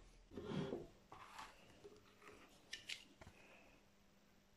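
Faint handling of a cardboard-and-plastic blister card: a soft rustle about half a second in, then small scrapes and two light clicks a little before three seconds in.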